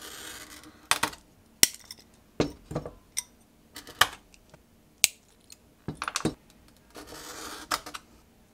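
Glass cutter scoring stained glass along a steel ruler, heard as a short hiss at the start and again near the end. In between come a dozen or so sharp clinks and clicks as glass pieces and the metal ruler are handled on the bench.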